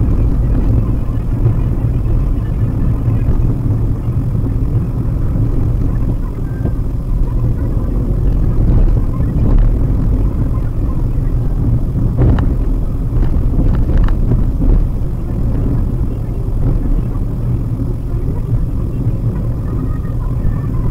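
Cabin noise of a Maruti Suzuki WagonR on the move: a steady low rumble of engine and tyres on the road, with a few short knocks a little past the middle.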